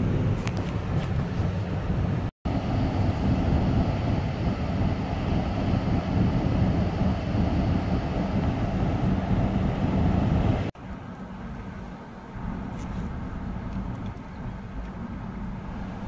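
Road and engine noise inside a moving car: a steady rush of tyre and wind noise. It cuts out completely for a moment about two seconds in, and after about eleven seconds it becomes much quieter.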